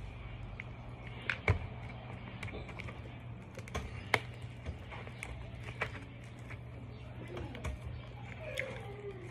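Scattered light clicks and crackles of fingers picking through fried fish in a foam takeout container, two of them sharper about a second and a half and four seconds in, over a steady low hum.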